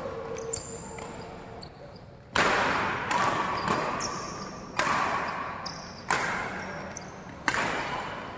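Badminton rally: rackets striking the shuttlecock in a quick exchange, about six sharp hits starting about two seconds in, each ringing on in the hall.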